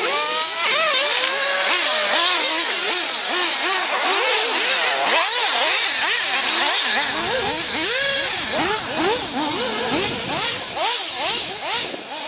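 Several electric radio-controlled off-road buggies racing on a dirt track, their motors whining up and down in pitch with each burst of throttle and overlapping one another.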